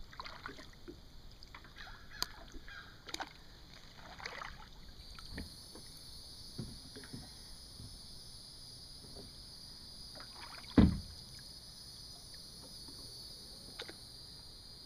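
Kayak drifting, with scattered light knocks and water sounds from the paddle and hull, and one sharp thump about eleven seconds in. A steady high buzz sets in about five seconds in.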